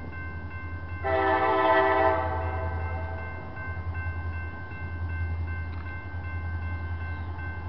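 Air horn of a distant CSX freight train led by EMD SD40 locomotives, one blast of about a second that starts about a second in, its chord dying away over the next second.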